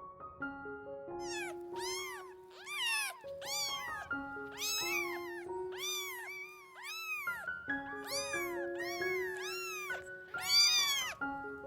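About a dozen high-pitched animal calls, each rising and then falling in pitch, over background music of steady held notes. The loudest call comes near the end.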